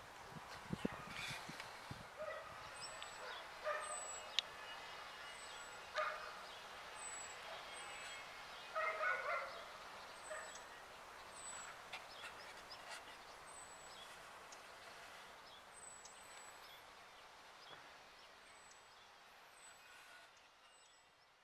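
A dog barks faintly in the distance a few times, while a short high chirp repeats about once a second.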